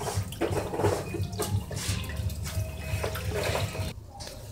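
Footsteps going up indoor stairs while a phone is handled and carried: a string of irregular knocks and rustles that quietens near the end.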